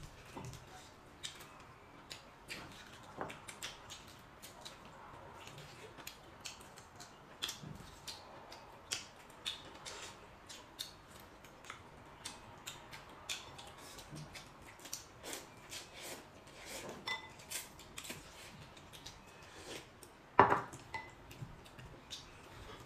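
Eating utensils clicking and tapping against bowls and plates in many small irregular strokes, with one louder knock about twenty seconds in.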